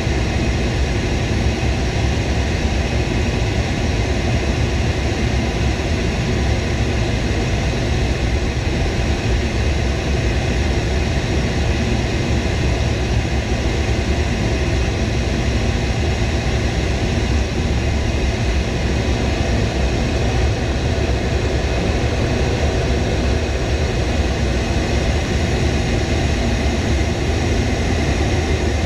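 Lockheed C-5M Super Galaxy's four turbofan engines in flight: a steady, unbroken drone, heaviest in a low rumble.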